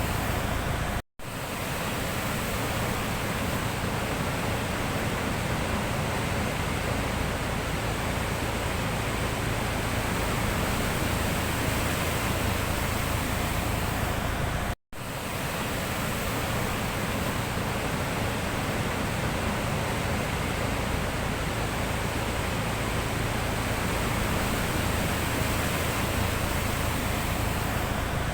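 Sea surf: a steady, even rush of waves, cutting out to silence for an instant twice, about a second in and again near the middle.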